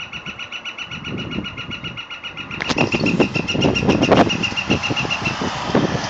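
Woodpecker drumming on the sheet-metal air cleaner lid of a Dodge cabover truck: a fast, even metallic rattle that rings at a fixed pitch and stops about five seconds in. A louder rushing noise with knocks joins it about halfway.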